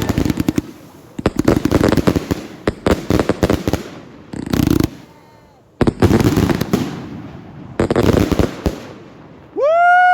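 Fireworks going off in several rapid volleys of sharp bangs and crackles, with short pauses between volleys. Near the end a person lets out a long rising-and-falling whoop.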